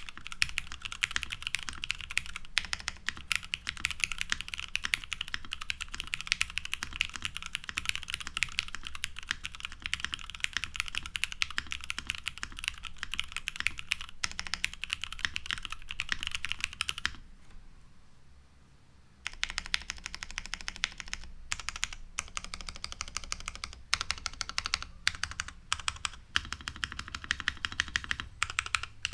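Continuous typing on an OTD 356CL mechanical keyboard: lubed vintage Cherry MX Black linear switches on a full aluminium plate, top-mounted with no foam, under NCR G81-3077 keycaps. The keystrokes stop for about two seconds past the middle, then resume in shorter runs.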